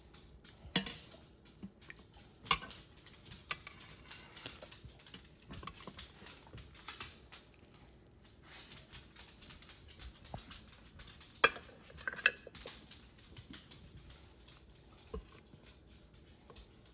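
Metal slotted spoon clinking and scraping against the Instant Pot's pot and a plate as cooked short ribs are lifted out: many light taps and scrapes, with a few sharp, loud clinks, two of them close together past the middle.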